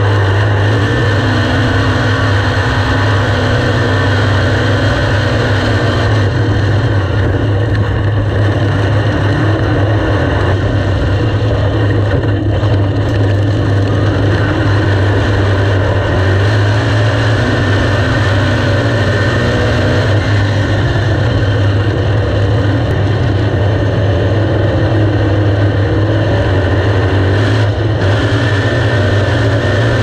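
Big-block dirt modified's V8 engine running hard at racing speed, heard from the in-car camera as a loud, steady drone with only slight rises and dips.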